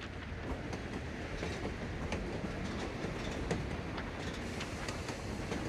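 Train running on an elevated rail line: a steady low rumble with faint scattered clicks.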